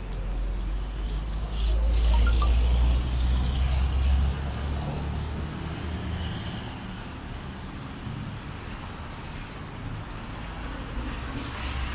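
City street traffic: a motor vehicle's engine passes close, loudest about two to four seconds in, then dies away to steady traffic noise.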